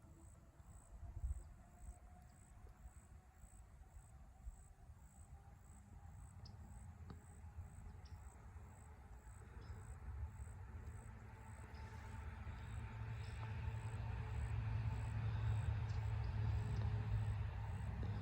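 Insects chirping in an even, high-pitched pulse, with the low rumble of a passing road vehicle that grows louder over the second half as it approaches.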